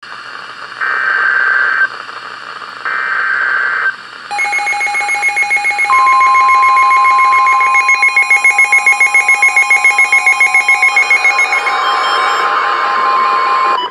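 NOAA Weather Radio emergency alert: two short screechy digital SAME header bursts, then, about six seconds in, the steady 1050 Hz warning alarm tone held until just before the end. Other electronic alert tones overlap it from about four seconds in.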